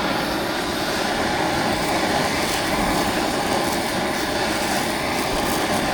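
Gas cooking burner lit and running at full flame, a steady rushing hiss that does not change.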